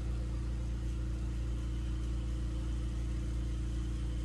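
Steady low mechanical hum of lampworking bench equipment, with the bench torch burning and a faint hiss above the hum.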